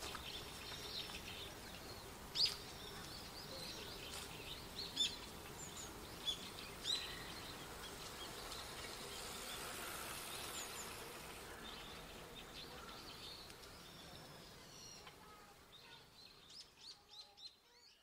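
Japanese tits giving short, sharp high calls now and then, over a faint steady outdoor hiss, with a quick run of short notes near the end.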